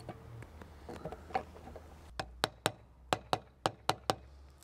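Soft-faced mallet tapping the bearing housing of a Volvo S130 saildrive back into the leg, seating the housing with its new seals and greased O-rings. A few faint knocks come about a second in, then about eight sharp, separate taps in the second half, roughly three a second.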